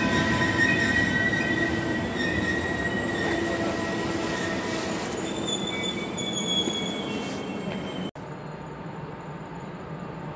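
Passenger coaches of a DB Intercity train rolling slowly past the platform, their wheels squealing in several high, steady tones over a low rumble. About eight seconds in, the sound cuts abruptly to a quieter, even station hum.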